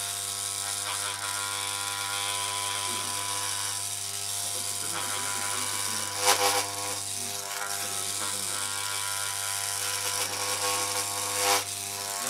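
Corded electric hair clippers buzzing steadily as they are run through the hair, with two brief louder bursts, about six seconds in and near the end.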